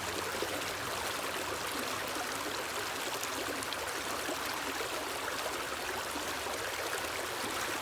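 A small stream running steadily, an even rushing and trickling of water.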